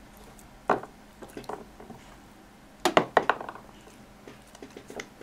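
A small hard toy knocking and clicking on a wooden desk top as a German shepherd puppy mouths and pushes it with its nose. There is a sharp knock a little under a second in, a quick cluster of knocks and clicks about three seconds in, and light ticks between.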